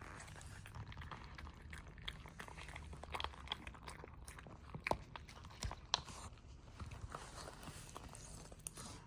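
Puppy eating, chewing its food with irregular clicks and smacks, two of them louder about halfway through.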